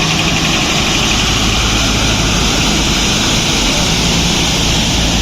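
Swollen, flooding river water rushing past in a loud, steady, unbroken rush.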